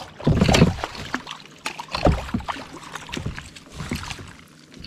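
Water splashing as a hooked lake trout thrashes at the surface and is scooped into a landing net beside a kayak, with short knocks against the boat. The biggest splash comes about half a second in, and another about two seconds in.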